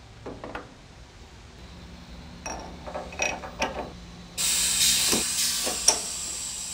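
Metal tool holders clinking and clanking as one is handled and set into a HAIMER presetter's spindle, then a sudden hiss of released air about four and a half seconds in that slowly trails off, with one sharp click partway through: the spindle's pneumatic tool clamp working after a button press.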